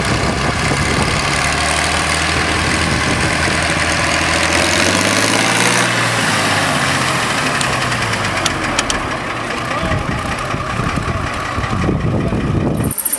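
Ford 8000 tractor's six-cylinder diesel engine running at low speed as the tractor is driven around, its note rising and falling a little in the middle.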